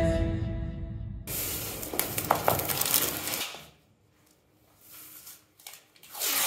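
Background music fading out, then a crackling, tearing sound of painter's masking tape being pulled off its roll and run along a baseboard for about two seconds, followed by a short silence and faint rubbing as the tape is pressed down.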